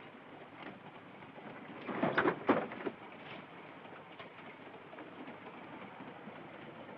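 Steady rumble of a moving train, with a short burst of rattling knocks about two seconds in as the compartment door is unlocked and opened.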